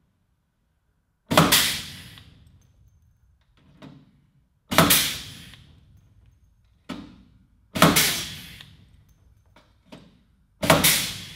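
Pneumatic pop-rivet puller setting aluminium blind rivets in a sheet-metal fuselage sill, four rivets about three seconds apart. Each pull is a sharp snap that fades over about a second, with smaller clicks between pulls as the tool is moved to the next rivet.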